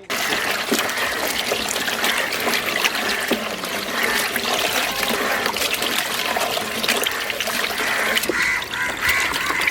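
Many ducks quacking at once, a dense and continuous clamour, with a trickle of water underneath.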